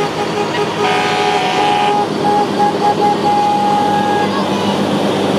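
Fire truck horns sounding as the parade trucks pass: one long blast about a second in, then a run of short toots and another long blast. Steady truck engine and road noise runs underneath.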